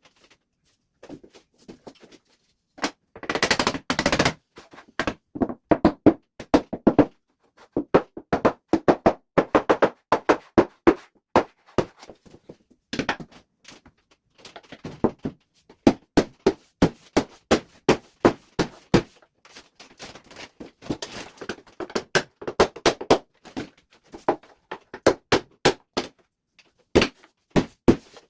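Runs of sharp knocks or clicks, several a second, broken by short pauses: rapid repeated impacts during woodworking.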